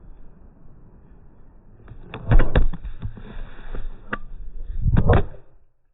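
Loud knocks and rattling thumps of a phone that is recording being knocked about and handled, the screen at risk of cracking. They come in a cluster about two seconds in and another near the end.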